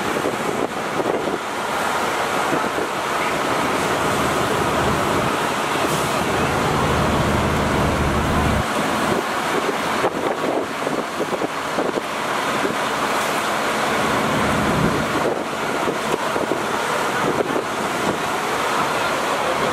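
A fire engine's motor running steadily under a constant rushing noise, with a low hum throughout.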